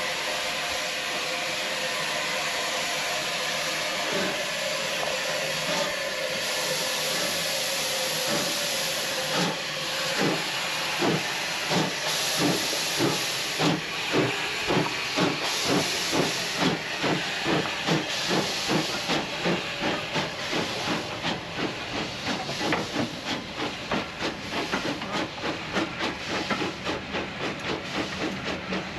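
Steam locomotive hissing steam, then pulling away: about ten seconds in, its exhaust beats begin, slow at first, and come steadily faster, to a couple of beats a second near the end.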